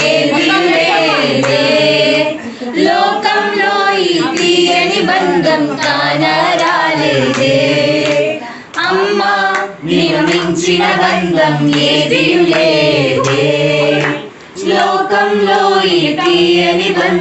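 Several voices singing a song together, unaccompanied, in long phrases with short pauses for breath about two, eight and a half, and fourteen seconds in.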